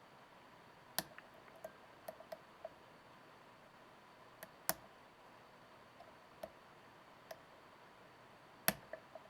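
Faint, irregular clicks and ticks of lock picks working the inside of a Kwikset SmartKey lock, with three sharper clicks at about one, four and a half and eight and a half seconds in.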